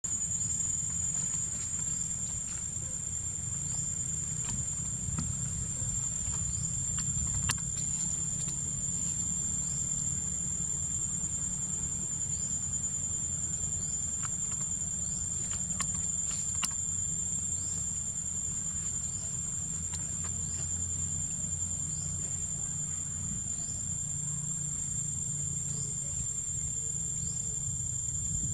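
Insects droning in a steady high-pitched whine, with short rising chirps repeating every second or so and a low rumble underneath.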